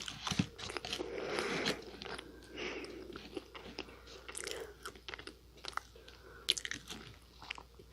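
Nunettine puff pastry cookie being bitten and chewed: crisp, flaky crunches, thick at first and thinning to scattered crackles in the second half.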